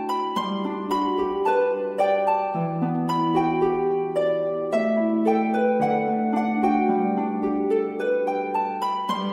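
Background music: a gentle stream of plucked, harp-like notes in flowing arpeggios at a steady pace.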